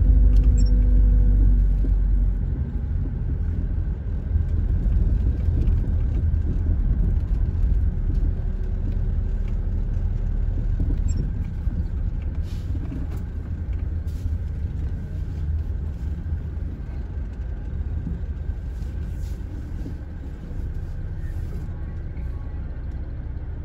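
Low, steady rumble of a vehicle moving slowly, heard from inside its cab, a little louder for the first couple of seconds.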